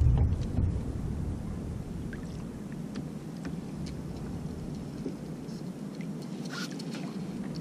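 Wind and water noise around a kayak on the open sea, with a few faint clicks as the fishing reel is handled.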